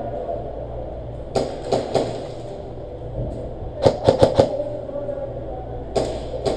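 Airsoft guns firing: three single shots, then a quick burst of about five, then two more near the end.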